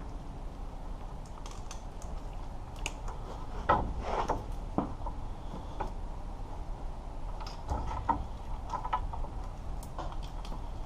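Scattered clicks, knocks and rattles of hand tools and wiring being handled while ground wires are fastened at the transmission, loudest about four seconds in and again around eight seconds, over a steady low hum.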